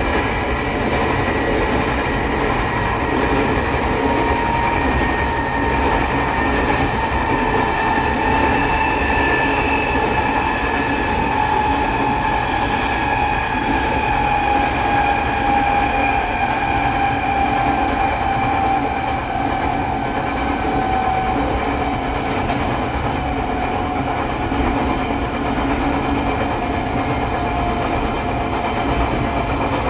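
Taiwan Railway E500 electric locomotive's Toshiba IGBT traction motors whining in slowly falling pitch as the train slows from about 120 km/h, over steady rolling noise of wheels on rail. The wheels are out of round, giving a flat-wheel rumble in the running noise.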